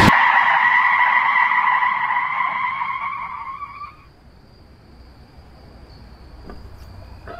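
Car tyres squealing in a long screech that fades away over about four seconds, leaving only a faint steady high tone.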